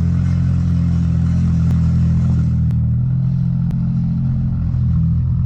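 Turbocharged Toyota 2JZ straight-six engine in a 1987 Supra running steadily at an even engine speed, with no revving.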